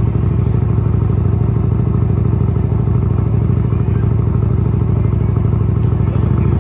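Motorcycle engine running loud and steady at an even speed.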